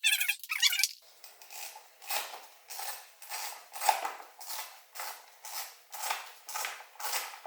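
Hand ratchet wrench backing out a bolt: a short squeak in the first second, then steady metallic ratcheting strokes about two a second.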